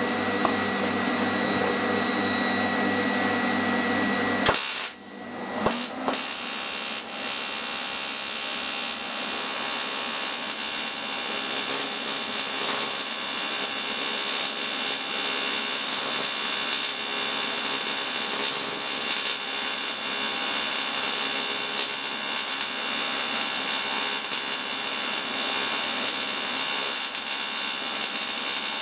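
TIG arc brazing a bronze motorcycle fuel-tank mount: a steady hiss of the arc that breaks off briefly about five seconds in, then runs on evenly.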